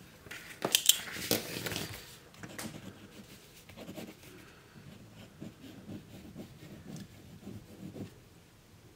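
Stainless-steel Parker Jotter ballpoint pen being picked up, with a few sharp clicks in the first two seconds. Its tip then scratches faintly across a paper notepad in short, repeated strokes.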